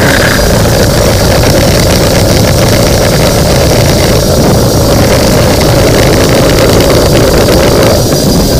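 Loud, steady motor noise from a power drain-cleaning machine working a line down a clogged urinal drain.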